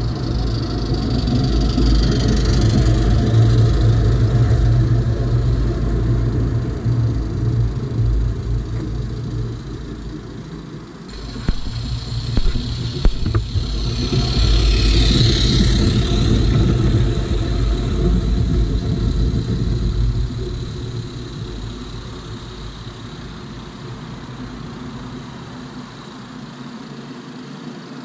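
Small model locomotive running along the track and passing close by, with a low rumble that swells as it goes past about halfway through and then fades away.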